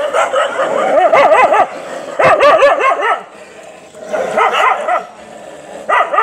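Dogs whining and yipping for food in about four short bursts of wavering, rising-and-falling cries.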